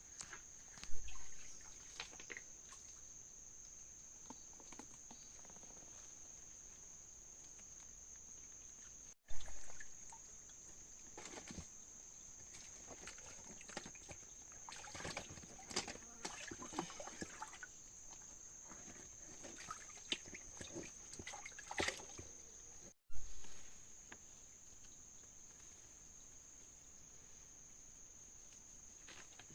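A steady, high-pitched insect chorus, with scattered clicks and some splashing and trickling water. The sound cuts out briefly twice.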